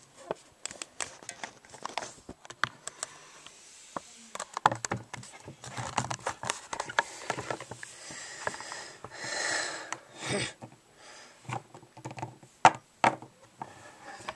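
Littlest Pet Shop plastic toy figures being handled, with irregular light clicks and taps as they are knocked together and set down on a wooden floor. There is hand-rustling throughout and a short breathy rush of noise a little past the middle.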